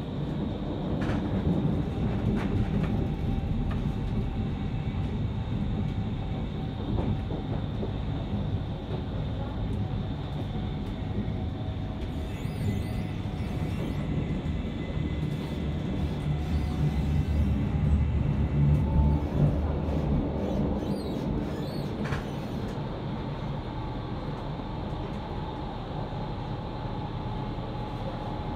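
Berlin U-Bahn IK18 train running, heard from inside the passenger car: a steady rumble of wheels on rails with a faint whine of the traction motors that slides in pitch. The rumble grows heavier about two-thirds of the way through.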